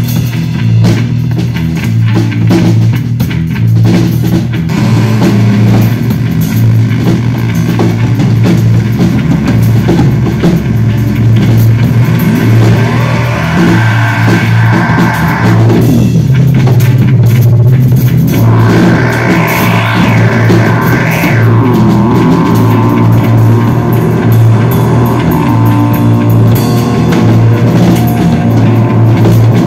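Electric bass guitar through effects pedals and a Yamaha drum kit playing loud instrumental rock: a heavy low bass riff pulsing steadily under the drums, with sweeping effect tones that rise and fall about halfway through.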